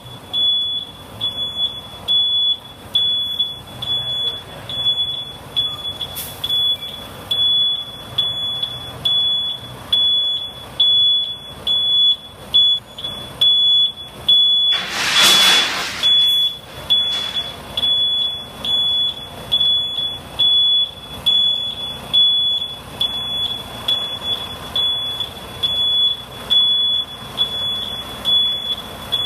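Vehicle backup alarm beeping steadily, about three beeps every two seconds, over a low engine rumble. A loud hiss bursts out once about halfway through.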